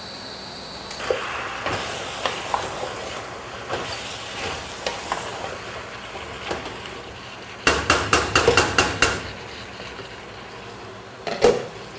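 Metal utensils clinking and knocking against cooking pots, with a quick run of about eight sharp taps about eight seconds in and one heavier knock near the end.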